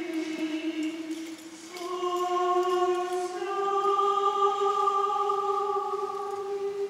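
Choir singing an Orthodox liturgical chant in Japanese, in slow, long-held notes. There is a short dip about a second and a half in, then the melody steps upward twice.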